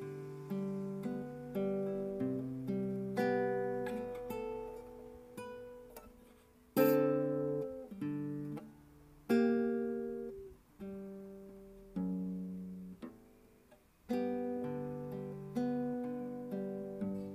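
Solo acoustic guitar playing a slow instrumental introduction: picked notes and chords that each ring out and fade, with a few louder strummed chords in the middle.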